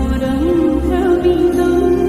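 Background music: a melody line that glides between notes over a steady low bass.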